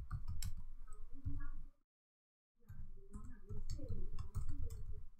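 Computer keyboard being typed on: scattered faint key clicks with low rumbly knocks, dropping to dead silence for just under a second in the middle.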